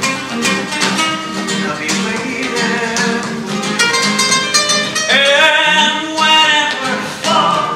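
Live flamenco-style music: guitar with steady rhythmic hand clapping, and a man's voice singing from about five seconds in.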